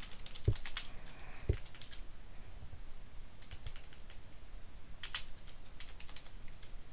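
Typing on a computer keyboard: an irregular run of key clicks, with two duller, heavier key thumps about half a second and a second and a half in.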